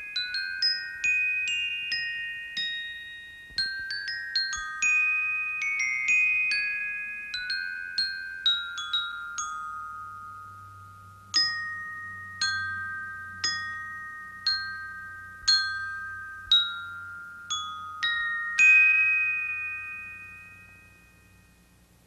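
Music: a slow melody of single bell-like notes struck on tuned mallet percussion, each note ringing on after it is hit. The loudest note comes near the end and rings out, fading away.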